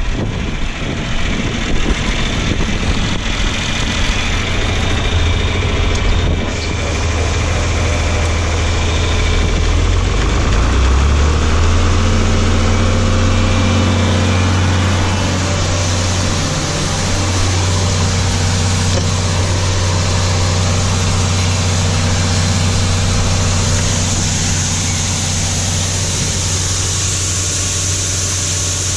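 Engine running steadily, its speed picking up about ten seconds in and then holding at the higher pitch.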